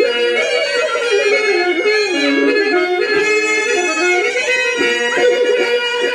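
Harmonium playing a melodic interlude over a steady held note, the accompaniment for a Telugu stage-drama padyam.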